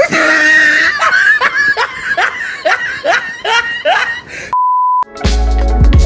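Laughter in quick repeated bursts, about three a second, then a short steady beep about four and a half seconds in. Electronic music with a heavy bass beat starts just after.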